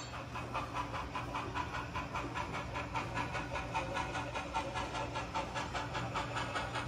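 HO-scale model train running: a quick, even rhythm of about five beats a second over a steady low hum.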